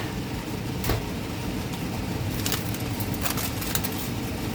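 Electric fan running with a steady rumbling hum, with a few light clicks and knocks over it, one about a second in and several more in the second half.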